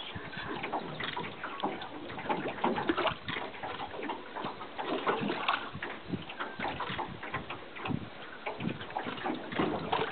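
Water sloshing and splashing in an irregular run of short slaps.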